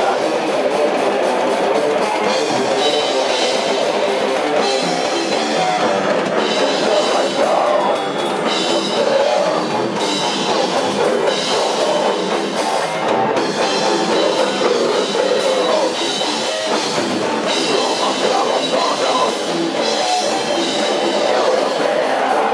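Rock music with a drum kit, playing steadily.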